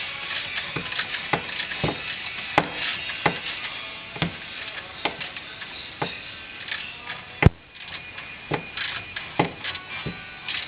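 Ratchet clicking in repeated short strokes as a bolt behind the rear brake caliper is turned by hand, a sharper click about every second with lighter ticking between, the loudest about two thirds of the way through.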